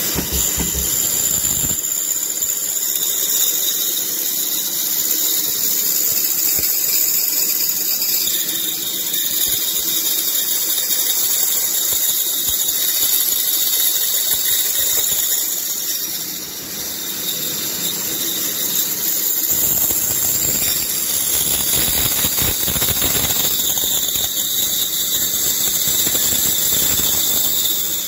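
Pégas fine-cut band saw slicing a thin butterfly-shaped piece off a profiled wooden block, the blade cutting with a steady high-pitched squeal and hiss. The sound eases briefly a little past halfway, then carries on.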